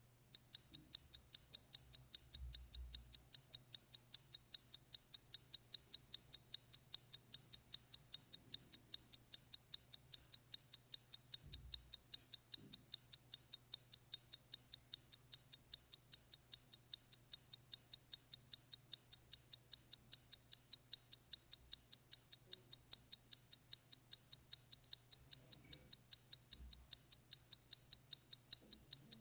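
Steady, fast, high-pitched ticking of a clock-style timer, about four ticks a second, starting abruptly.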